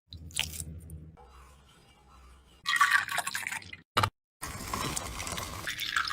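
Liquid being poured and splashing during food preparation, heard in a few short segments with abrupt cuts between them.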